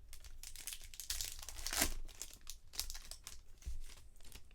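Foil trading-card pack wrapper crinkling and tearing as a pack is ripped open, a dense run of crackles loudest between about one and two seconds in.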